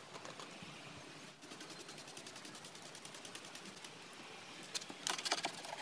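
Hand-held trigger spray bottle squirting soapy water in quick repeated spritzes, several a second, growing louder near the end.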